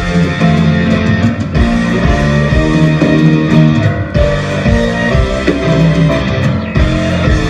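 Loud rock music led by electric guitar, with a steady beat.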